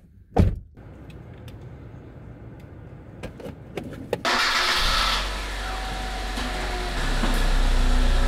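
A single heavy thump, then a few light clicks; about four seconds in the hatchback's engine cranks, catches and settles into a steady idle.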